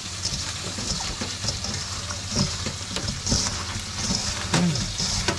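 Wet rubbing and squishing of small fish being scrubbed by hand with salt in a stainless steel bowl, with irregular soft clicks and scrapes as the fish shift against the metal. The fish are being salted for drying.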